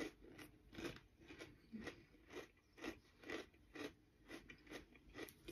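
Faint chewing of crunchy ghost pepper chips, a steady crunch about twice a second.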